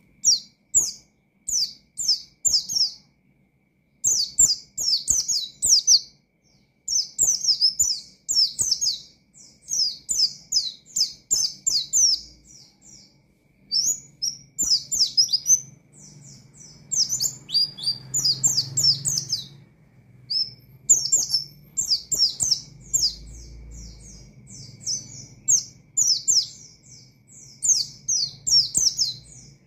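A white-eye (pleci) singing vigorously: rapid runs of high, quick chirping notes in phrases a second or two long, with short pauses between them.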